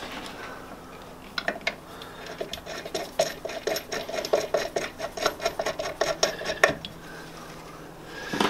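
Rapid metallic clicking and clinking, about five sharp clicks a second for some five seconds, from metal parts being handled at the lathe motor's mount.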